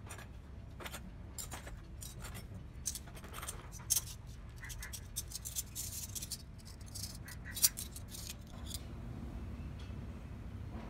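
Small miniature kitchen utensils being handled and set down: a string of light clicks and clinks, with two sharper knocks, one about four seconds in and one about three quarters of the way through. The clicking stops shortly before the end.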